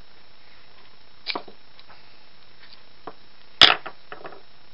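Sharp metal clicks and knocks as a part is worked loose from a Roto window corner drive during repair. There are two quick clicks about a second in and one loud snap past the middle, followed by a few small ticks.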